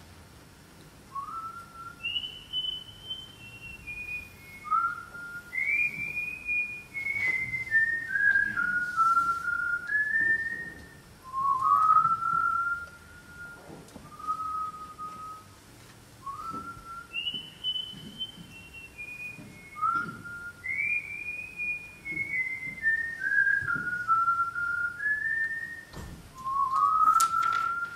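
A person whistling a tune: a phrase of short notes that step downward from high to low, whistled twice over. A knock near the end.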